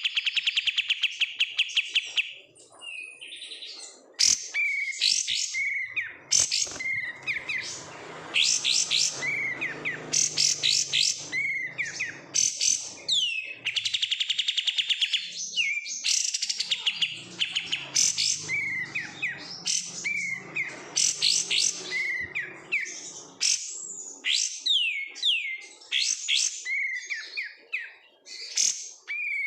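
Kapas tembak songbird singing continuously, a varied song of fast rattling trills, sharp chips and quick down-slurred whistles.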